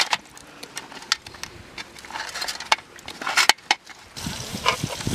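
Large crabs' hard shells and legs clicking and scraping against a metal pot as hands shift them, in irregular sharp clicks. A little after four seconds this gives way to a denser, steadier noise with low thuds.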